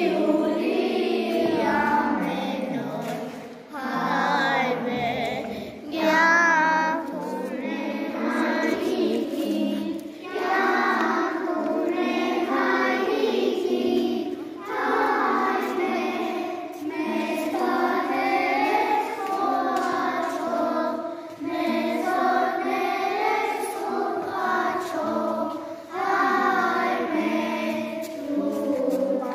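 A group of children singing a song together, in phrases of a few seconds with short breaks between them.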